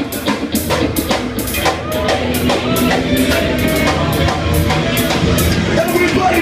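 Rock music with a steady, driving drum beat, about two and a half hits a second.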